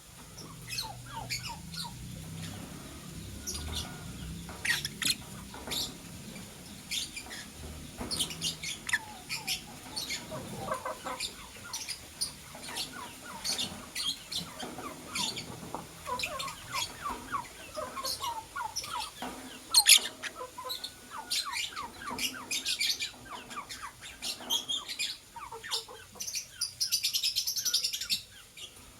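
Lovebirds, a blue opaline and a masked lovebird, chirping: many short high chirps throughout, with a quick run of rapid chatter near the end.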